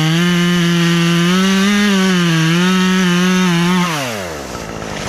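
Chainsaw running at high revs with slight wavers in pitch, then the revs drop away about four seconds in as the throttle is released.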